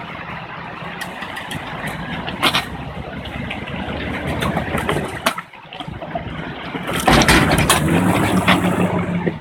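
Off-road vehicle engine running at low speed while crawling through a rocky creek crossing. It dips briefly about five and a half seconds in, then revs up louder about seven seconds in, with a rush of noise over it.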